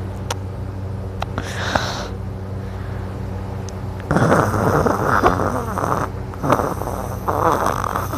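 A sleeping person snoring loudly. A long rough snore starts about four seconds in, and shorter ones follow near the end, over a steady low hum.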